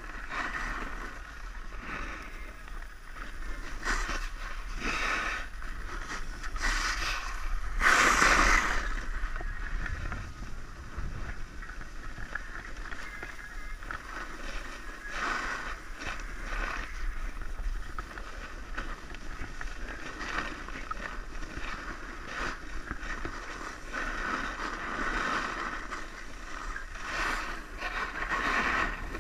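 Steady hiss and scrape of snow under a rider sliding down a ski slope, swelling and fading with the turns, mixed with wind rushing past the microphone. There is a louder burst about eight seconds in.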